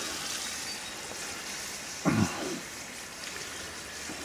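Potatoes frying in oil in a pan, a steady fine sizzle. A short vocal sound comes about two seconds in.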